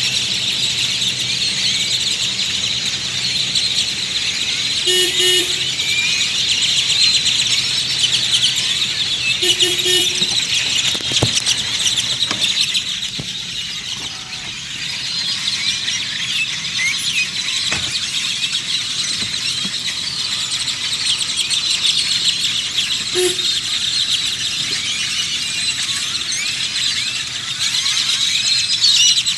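A large flock of birds calling all at once: a dense, unbroken chorus of squeaky, high chirps. A few short lower tones break through, about five and ten seconds in and again later.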